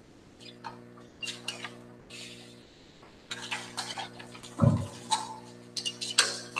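Scattered light clicks and knocks from people moving about on the stage, over a steady low hum. One low thump stands out about two-thirds of the way through.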